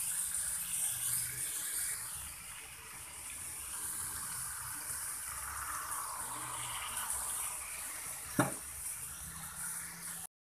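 Potato cubes and masala frying in a pan, a steady sizzle as they are stirred with a spatula, with one sharp knock a little after eight seconds in. The sound cuts off suddenly just before the end.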